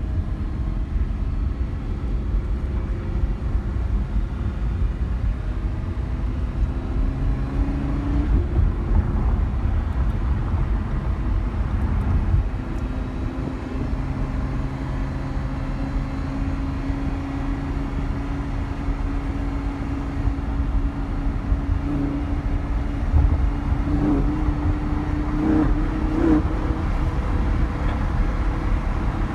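Lamborghini Huracan LP610-4's V10 engine running under way, with a steady low road rumble beneath it. The engine note climbs slowly, breaks off about eight seconds in, then holds and climbs again near the end.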